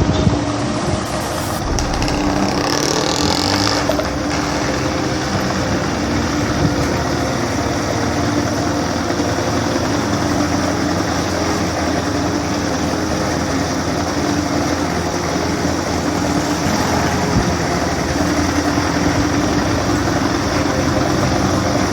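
Yamaha SR125's single-cylinder four-stroke engine idling steadily on its freshly rebuilt carburettor, running smoothly.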